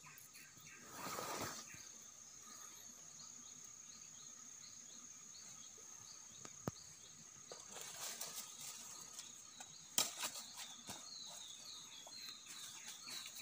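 Quiet forest ambience with a steady high insect drone and rows of short repeated chirps. Brief rustles of dry leaves and bamboo come as the trap is handled, about a second in and again around eight seconds, with a sharp click near ten seconds.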